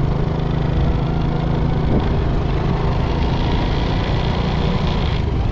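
Motorbike engine running steadily while being ridden.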